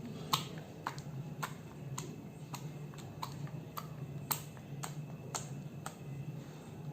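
A run of sharp, evenly spaced clicks, about two a second, over a steady low hum.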